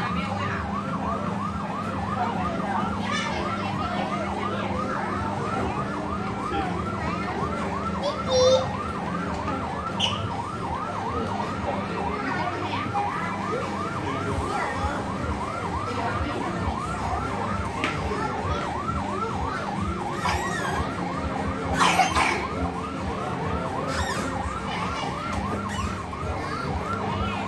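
Electronic siren sound effect played through a coin-operated fire-engine kiddie ride's speaker: a fast yelping wail that repeats over and over without a break, over a steady low hum. A brief louder noise breaks in about three-quarters of the way through.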